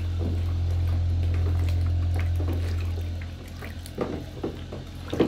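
Bathwater splashing and pouring as a small plastic cup is dipped and tipped in a bubble bath, with a few sharper splashes near the end. A steady low hum runs underneath and eases off after about three seconds.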